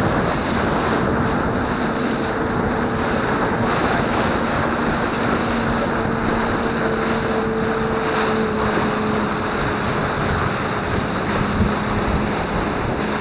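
Motorboat running at speed: steady wind noise on the microphone and water rushing past the hull, over the low, even hum of the boat's 150 hp engine.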